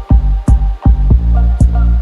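Music with heavy bass and a steady beat, about two beats a second.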